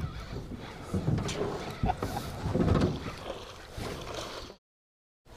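Water splashing and handling noise in a small boat while a hooked musky is fought on rod and reel, with a few sharp knocks. The sound drops out to silence for a moment near the end.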